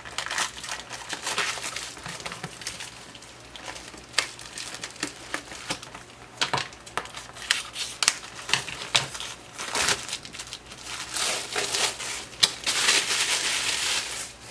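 A wrapper crinkling and crackling as it is worked off a new workbook by hand. The crackles come irregularly, then run together into a longer, louder stretch near the end.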